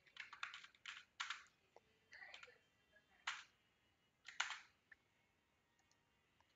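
Faint typing on a computer keyboard: a quick run of keystrokes in the first second and a half, then a few single taps spaced about a second apart.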